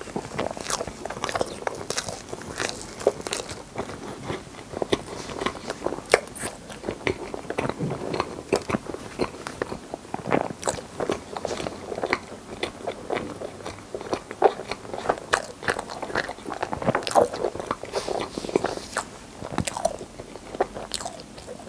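Close-miked chewing of a mouthful of soft, cream-layered rainbow crepe cake: a dense, uneven run of small moist mouth clicks and smacks.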